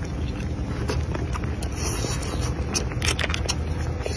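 A person eating: chewing and slurping, with a few sharp clicks of chopsticks and food against the bowl about three seconds in. Under it runs a steady low rumble.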